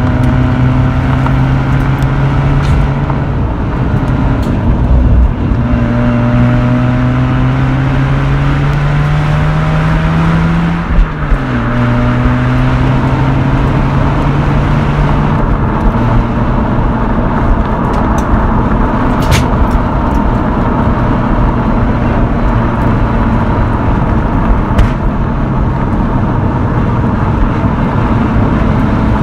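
Mazda RX-8's naturally aspirated 13B rotary engine and exhaust running at mid revs. The pitch holds steady in stretches with a few sudden steps as gears change, climbs for a few seconds and then drops sharply about eleven seconds in. A couple of short sharp ticks come later.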